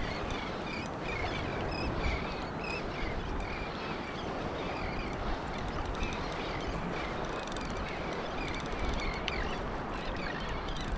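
Wind and surf washing steadily, over a string of short, repeated seabird calls, about two a second.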